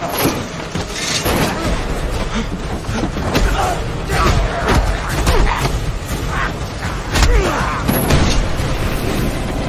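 Action-film sound mix of vehicles racing through explosions: a constant heavy low rumble of engines with repeated booms and crashing impacts, the loudest about seven seconds in as a vehicle crashes.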